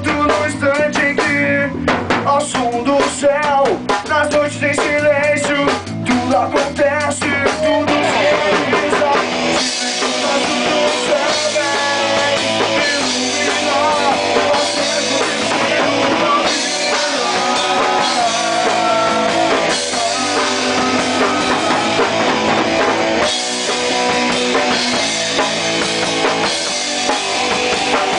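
Rock band playing live: drum kit, electric guitar and electric bass. About eight seconds in the band comes in fuller, with cymbals washing over a thick guitar sound.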